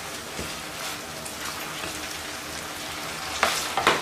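Sliced potatoes and onion frying in plenty of oil in a frying pan: a steady sizzle, with a few quick strokes of the spatula moving and scraping through the pan near the end.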